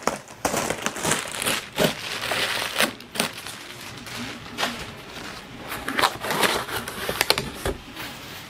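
Plastic packaging wrap crinkling and cardboard rustling as a 3D-printer box is unpacked: dense crackling for the first few seconds, then scattered clicks and rustles as a cardboard layer is lifted out.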